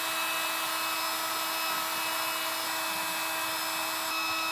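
Portable electric air pump motor running with a steady, unchanging hum.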